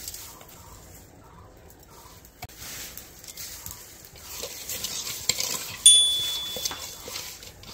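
Hands mixing raw fish pieces with spice powder and onion in an aluminium pot, a soft wet rubbing with small taps. About six seconds in, a sharp metallic clink rings on for about a second.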